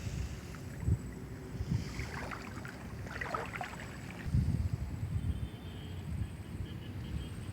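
Wind buffeting the microphone outdoors: a low, gusty rumble, with a short crackling rustle about two to four seconds in.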